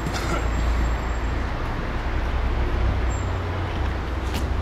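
Steady street traffic noise: motor vehicles running along a city road, a continuous low rumble under an even hiss.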